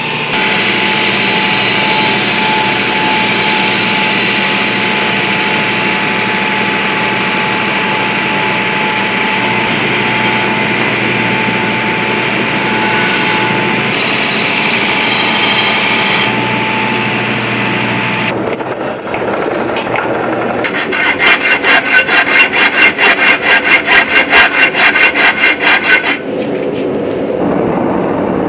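Belt grinder grinding a steel sword blade: a steady, loud rasp with a thin whine. After a sudden cut, a fast, even run of loud strikes, about three a second, lasts roughly five seconds. A steadier rushing follows near the end, from lit propane forge burners.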